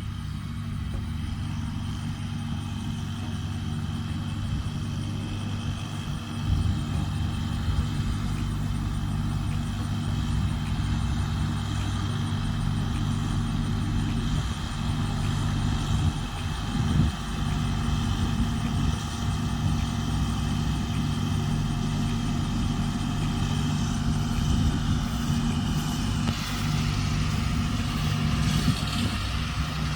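John Deere 7320 tractor's diesel engine running steadily under load while pulling a John Deere 468 round baler.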